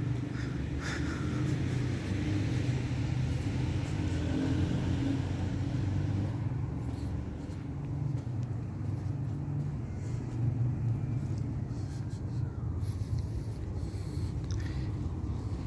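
A car running, with a steady low drone of engine and road rumble.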